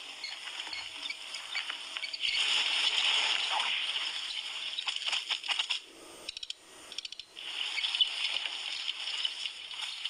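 A loose bicycle wheel rolling through dry grass, over gravel and into wheat stalks, with a continuous high rustling and scattered crackles. It drops away briefly about six seconds in, then picks up again.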